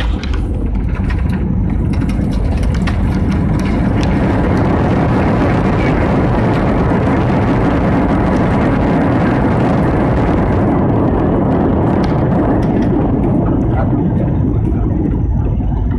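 Jet airliner's engines and rushing air, heard loud from inside the cabin during landing. The noise holds steady through the middle and eases off over the last few seconds.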